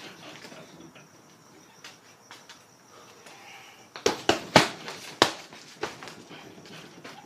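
Gloved punches landing on a hanging heavy punching bag: a flurry of five sharp hits starting about four seconds in.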